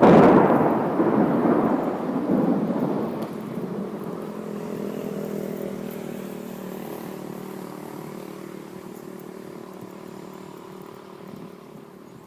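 A thunderclap: a sudden loud crack at the start, followed by low rumbling that slowly dies away over about ten seconds.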